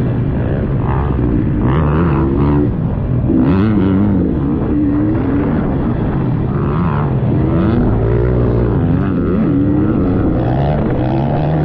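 Dirt bike engine running hard on an off-road trail, its pitch rising and falling again and again as the throttle is worked.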